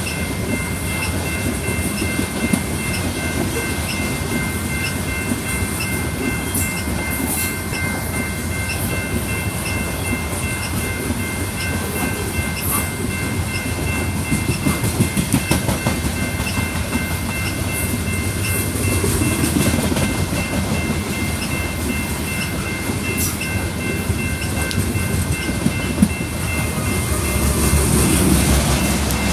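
Loaded coal train's railroad cars rolling past at steady speed: continuous wheel-on-rail rumble with clickety-clack from the wheels, a faint high ringing tone running under it.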